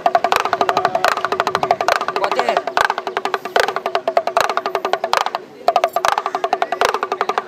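Damru, a small hourglass hand drum, rattled fast so its knotted cords beat both heads: a rapid, even patter of sharp ringing strokes, broken by short pauses, the longest about five and a half seconds in.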